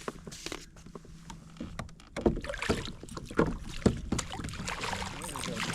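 Water splashing and irregular knocks against a kayak as a freshly netted coho salmon is handled alongside, getting busier about two seconds in.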